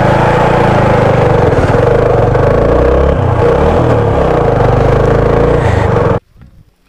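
TVS Apache 4V motorcycle engine running loud as the bike is ridden, its note dipping and then rising again about three and a half seconds in. The sound cuts off suddenly about six seconds in.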